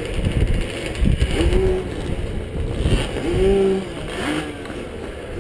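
1981 Husqvarna 430 two-stroke single running with a choppy low rumble, shut off suddenly about three and a half seconds in. Other motocross bikes rev up and down in the distance several times.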